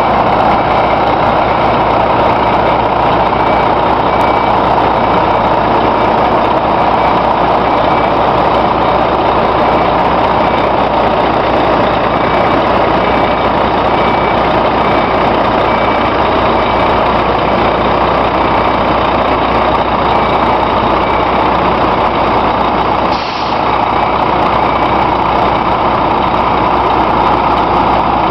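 Heavy-haulage truck's diesel engine running steadily as the tractor unit pulls its low-loader trailer slowly, with an electronic warning beeper sounding about once a second. A short hiss of air comes once, late on.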